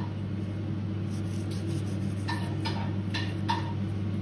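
A steady low background hum, with a few faint short ticks in the second half.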